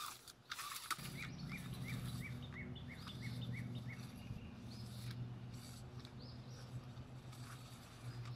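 A bird calls a quick run of about ten short chirps, about three a second, over a steady low hum that comes in about a second in. A few clicks and rattles come from a plastic recoil starter housing being turned over in the hands.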